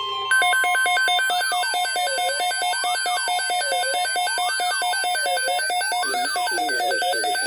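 Weather alert radio's built-in alarm going off: rapid electronic beeping on two pitches over a tone that sweeps up and down like a siren, about every second and a half. It signals a severe weather alert, here a tornado watch. The broadcast voice comes in faintly underneath near the end.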